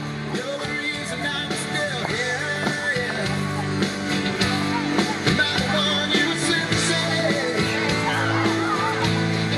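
Country dance song with a singing voice, guitar and a steady beat.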